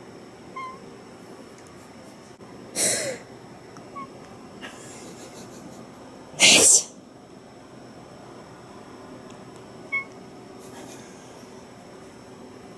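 A person sneezes loudly twice, about three seconds in and again about six and a half seconds in. A few very short, faint high cat mews come between and after the sneezes, the cat answering them.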